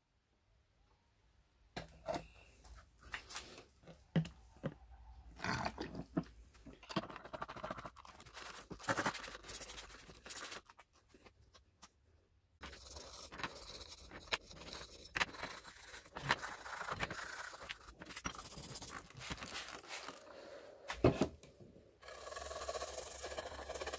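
Irregular scrapes, clicks and knocks as the metal lamp parts are handled in a tray.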